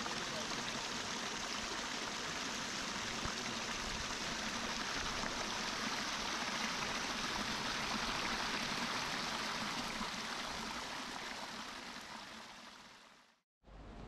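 Mountain river rushing steadily, a full, even water noise that fades down near the end and breaks off at an edit.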